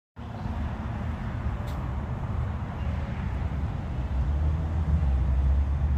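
A car's engine and road noise as it drives slowly, a low rumble that grows louder about four seconds in.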